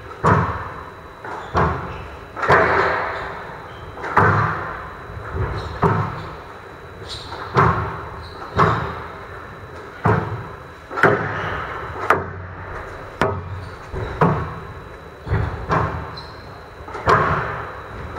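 Squash rally: the rubber ball cracking off rackets and the front wall over and over, roughly once a second, each hit echoing in the hall.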